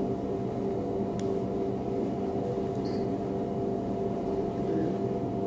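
Steady mechanical hum of a commercial kitchen's ventilation, holding a few steady tones, with a faint click about a second in.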